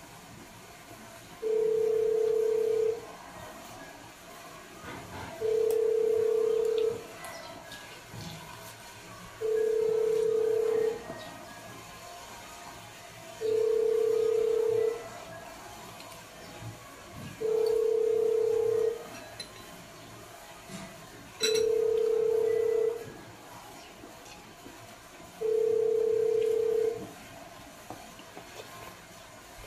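An electronic beep tone, one steady pitch held for about a second and a half and repeating every four seconds, seven times. Between the beeps, faint clicks and handling sounds from eating by hand, with one sharp click a little past the middle.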